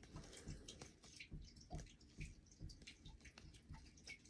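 Near silence with faint, irregular small clicks and ticks, a few each second.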